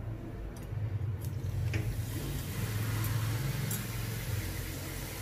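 Samosas slipped one by one into hot oil in a kadai, a few soft knocks as they go in, then the oil sizzling and bubbling around them from about two seconds in, building to a steady frying hiss. They fry gently on a low flame so the raw onion filling cooks through.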